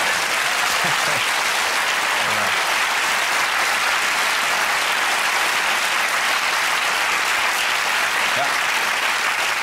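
A studio audience applauding: many hands clapping in a dense, even patter that holds steady throughout.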